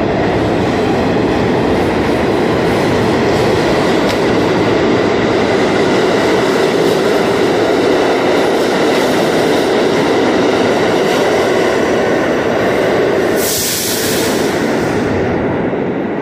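Subway train pulling out and running past on the near track, a loud steady rumble and rattle of wheels and motors. A brief high hiss comes about fourteen seconds in, and the noise then eases a little.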